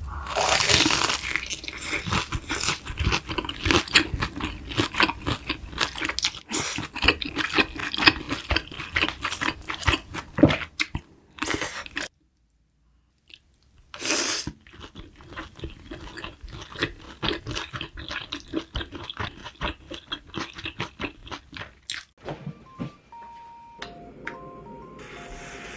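Close-miked crunchy chewing and biting, a rapid run of crisp crunches that stops dead about halfway and resumes after a loud bite. Near the end the crunching gives way to a short tune of plain stepped tones over a steady hiss.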